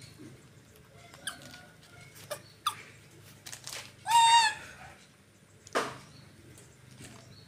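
A young macaque gives one short, high, wavering squeal a little past halfway. Several sharp clicks and knocks come before and after it.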